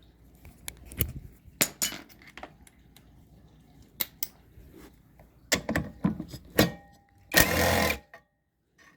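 Metal tools and engine parts clinking and knocking as they are handled, in scattered sharp clicks. Near the end comes one short burst of a power tool running for about half a second.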